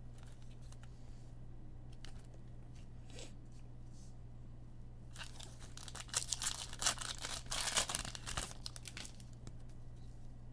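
Foil wrapper of a trading card pack being torn open and crinkled, a dense crackling rustle lasting a few seconds about halfway in, after a few faint clicks of handling. A low steady hum runs underneath.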